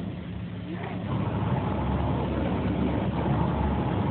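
Automatic car wash running, heard from inside the car's cabin: a steady noise, heaviest in the low range.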